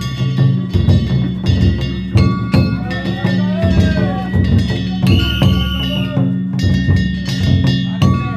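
Danjiri festival music: a drum and hand gongs struck in a quick, steady rhythm, the gongs ringing bell-like, with voices calling over it and a whistle held for about a second near five seconds in.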